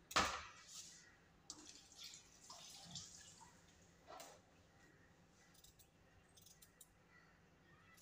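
A kitchen knife knocking and scraping against a plate while fresh coconut is cut into pieces. A sharp knock about a quarter second in is the loudest, followed by scattered lighter clicks and short scrapes.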